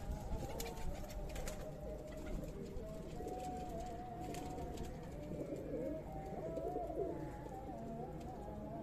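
Several domestic pigeons cooing at once, their wavering low calls overlapping continuously.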